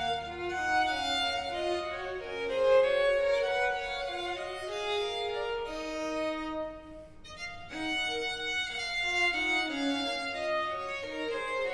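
Baroque chamber ensemble playing, violins leading over other string instruments. The music thins to a brief pause about seven seconds in, then starts again.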